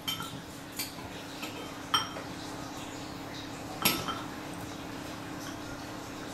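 Metal spoon clinking against a ceramic cereal bowl, a few sharp separate clinks with the loudest about two and four seconds in, over a steady low hum.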